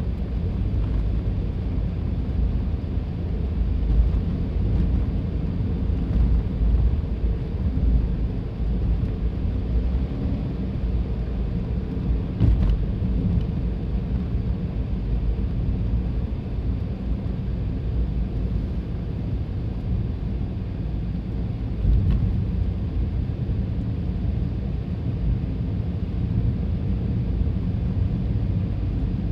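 A car on the move, its engine and tyre noise a steady low rumble.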